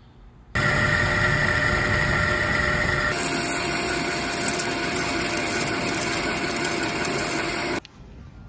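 Metal lathe running with a cutting tool turning a round metal part in the chuck: a loud, steady machining noise with a constant whine. It starts abruptly about half a second in, turns hissier about three seconds in, and stops abruptly near the end.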